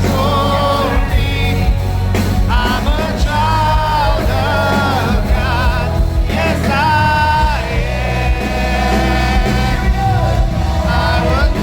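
Live worship music: sung, held melody lines over a band with a steady bass and regular drum hits.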